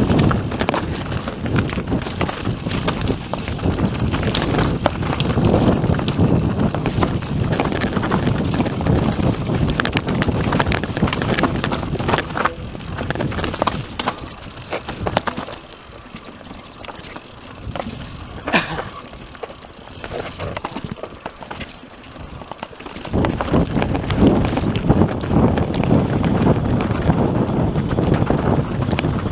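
YT Industries Capra AL Comp mountain bike descending a rocky dirt trail, its tyres rumbling and rattling over stones with many sharp clicks and knocks. It quietens for several seconds past the middle, then grows loud again.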